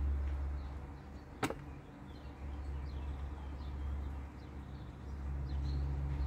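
Distant Antonov An-26 turboprop high overhead: the low, steady rumble of its propellers, swelling and fading. A single sharp click sounds about one and a half seconds in, and small birds chirp faintly.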